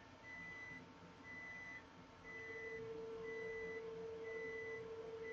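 Faint high electronic beep repeating about once a second, each beep short and on one pitch. A faint steady hum comes in about two seconds in.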